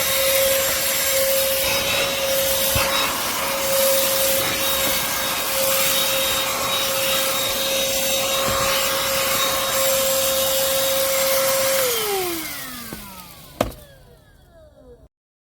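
Black+Decker cordless pivot handheld vacuum running with a steady high whine and airflow rush. About twelve seconds in it is switched off and its motor winds down in a falling whine. A single sharp click comes near the end.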